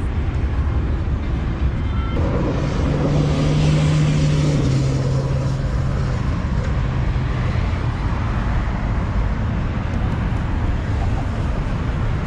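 Road traffic with a steady low rumble. About two seconds in, a vehicle passes close by for several seconds; its engine hum drops slightly in pitch partway through, then fades back into the general traffic.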